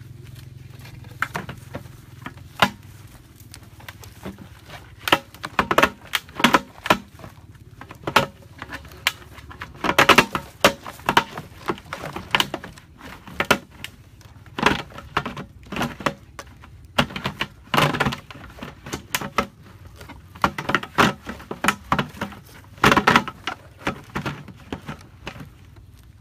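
Hard plastic parts clicking and knocking together as a corrugated plastic pipe, PVC fittings and a plastic bottle are handled and fitted into a plastic container, in irregular clusters of sharp clicks.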